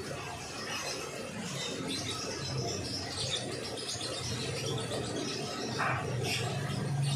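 Small birds chirping and twittering over and over, high and quick, over a low steady hum.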